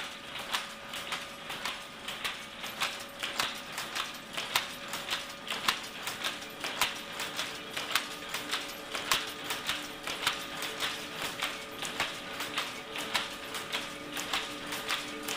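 Power looms weaving, a fast steady mechanical clatter with about two loud knocks a second and lighter clicks in between.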